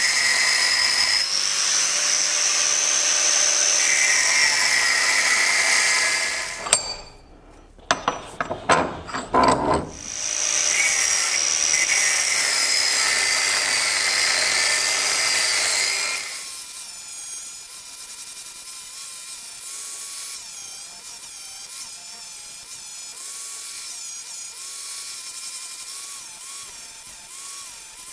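Angle grinder with a thin cutting disc cutting through steel, its motor whining steadily under load. The cutting breaks off about a quarter of the way in for a few sharp knocks, then resumes. From a little past halfway the grinding is quieter, with a whine that wavers up and down.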